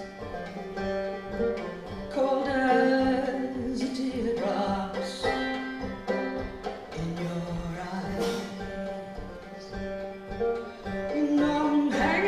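A woman singing a folk song to her own plucked banjo accompaniment. The banjo notes run steadily under several sung phrases.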